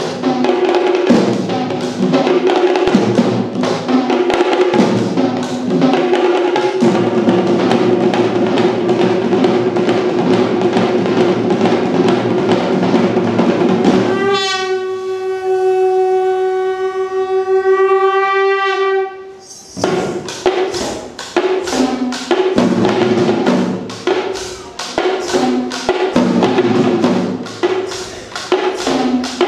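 An ensemble of Kandyan geta bera barrel drums and tammattama kettle drums played fast and hard. About 14 s in, the drumming stops and a wind instrument holds one long steady note for about five seconds, then the drumming starts again.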